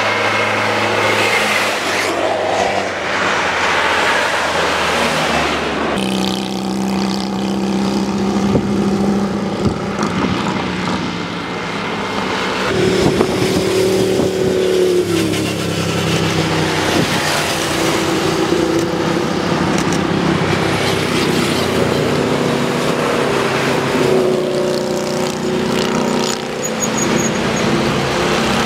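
Buses and other heavy traffic passing close by on a highway, engines running over a steady rush of road noise, the engine tones changing every few seconds as one vehicle goes by and the next comes on.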